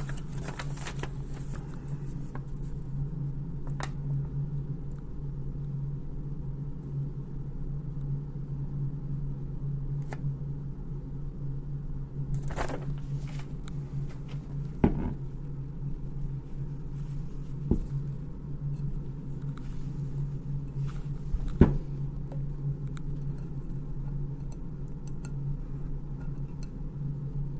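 Steady low hum of room noise with a handful of scattered small clicks and knocks as metal rifle parts of a Ruger 10/22 are handled during disassembly.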